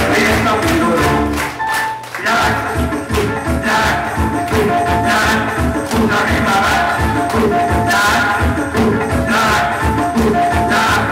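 Dance music with a steady beat, played for a children's dance routine. The bass and beat drop out briefly about two seconds in, then come back.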